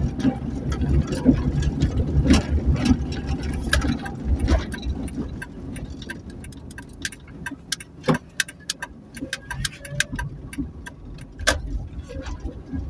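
Vehicle driving, heard from inside the cabin: a low engine and road rumble, easing off about halfway, then a run of light clicks and rattles.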